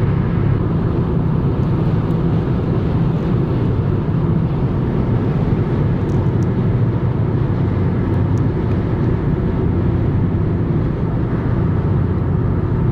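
A car driving along a highway: steady engine and tyre noise with a low hum, unchanging throughout.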